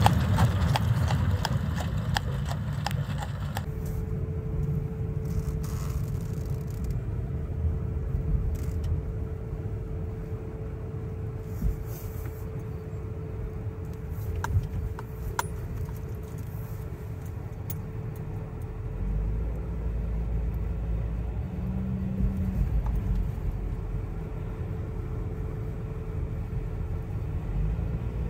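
A horse's hooves clip-clop for the first few seconds and stop abruptly. Then comes the low, steady rumble of a car driving on a snow-covered road, heard from inside the cabin with a constant hum. The rumble grows fuller about two-thirds of the way through.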